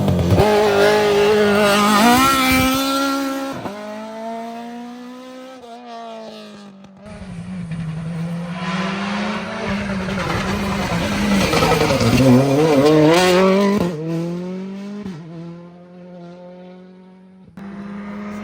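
Rally cars at full throttle on a tarmac stage, engine note climbing and dropping sharply through gear changes as each car passes. The sound jumps abruptly a few times, from one car's pass to another's.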